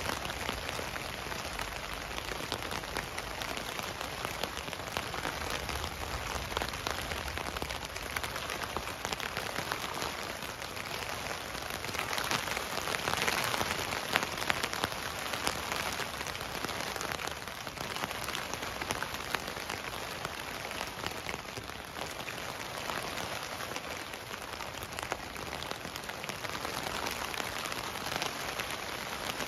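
Rain falling on a tent, heard from inside: a steady patter of many drops, growing heavier for a few seconds about twelve seconds in.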